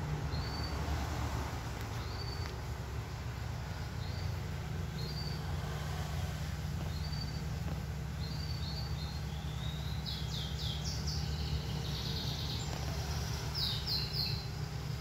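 A bird calling in short high chirps about once a second, with a quicker run of falling notes around ten seconds in and again near the end, over a steady low rumble.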